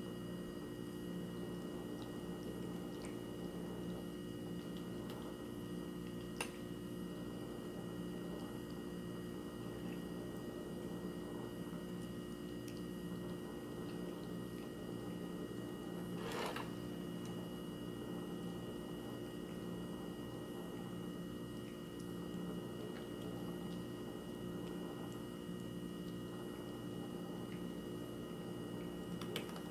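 A cat eating dry kibble out of a hand, with a few faint crunches, over a steady hum with high, constant tones.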